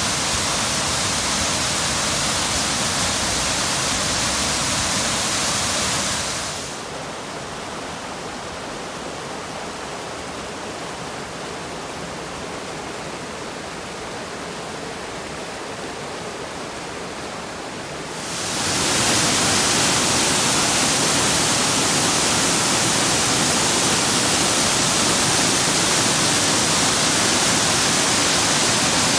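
Waterfall pouring over rocks, a steady rush of falling water. About six seconds in it gives way to the quieter, duller rush of the river running over rapids. About twelve seconds later the louder rush of the falls returns.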